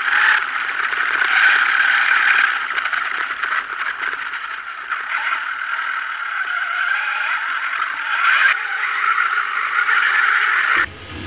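Steady rattling and scraping of an RC buggy driving fast over dirt and grass, picked up by a camera mounted on the car. It cuts off abruptly just before the end.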